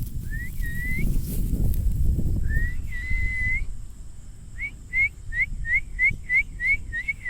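A person whistling to call a dog: two long whistles that rise and then hold, followed about a second and a half later by a quick run of about nine short rising whistles, over a low rumbling noise in the first half.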